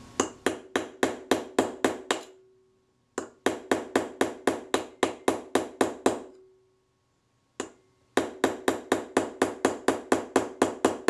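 Small hammer tapping a pin punch to drive the door hinge pin out of a Kodak Retina type 119 camera body. Three runs of quick, light metal taps, about four a second, each with a short ringing note. The pin moves only reluctantly; it may have a bit of a twist in it.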